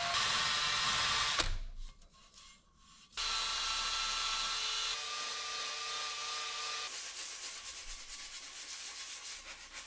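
Cordless drill spinning a small wire brush against the spokes of a car wheel, scrubbing dirt out of curb-rash grooves and gouges: a steady whirring scrape. It stops for about a second and a half near two seconds in, then starts again.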